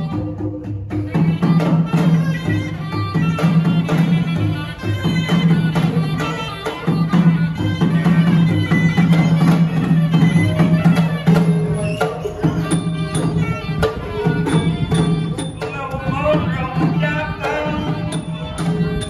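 Southern Thai Nora ensemble of drums and small percussion playing over a steady low drone, accompanying a male voice chanting verse in the nang talung style through a microphone.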